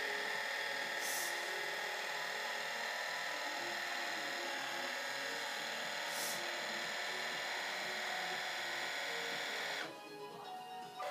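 Motorized mount of a Meade ETX-80 goto telescope slewing on its own to an alignment star: a steady electric motor and gear whine that cuts off suddenly near the end, when the mount reaches its target.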